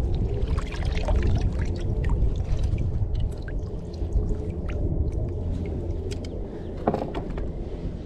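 Water splashing and trickling around a kayak in short scattered bursts, over a steady rumble of wind on the microphone.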